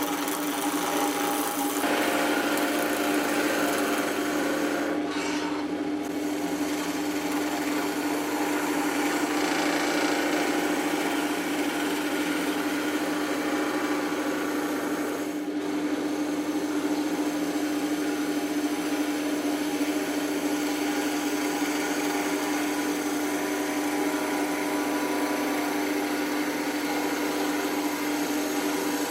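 Power tool running steadily, a constant motor hum under a rasping, rubbing noise of the work against it, which dips briefly twice.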